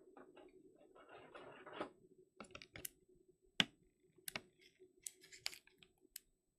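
Trading cards being handled at a table: a brief papery rustle, then a run of sharp, irregular clicks and taps.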